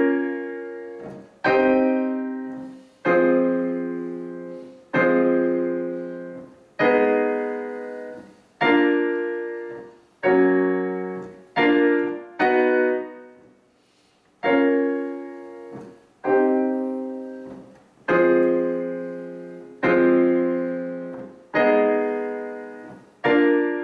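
Digital piano playing sustained block chords, one struck roughly every two seconds and left to ring and fade before the next.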